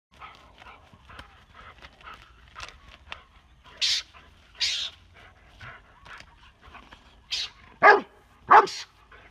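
A dog barking at a mongoose: two loud barks that fall in pitch near the end. Before them come faint rustling and two short harsh hissing bursts about four seconds in.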